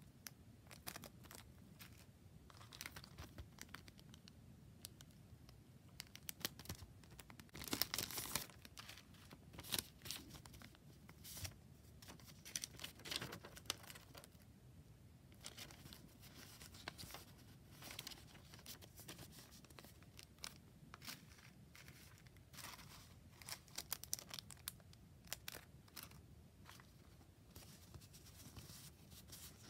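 Clear plastic packet crinkling and paper rustling as small packaged journaling items and a kraft paper envelope are handled and unpacked by hand: irregular crackles and rustles with several louder bursts, the loudest about eight seconds in.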